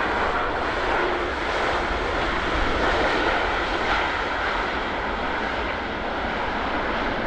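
Jet noise from a Boeing 787-8 airliner at landing, a steady loud rush that eases slightly toward the end.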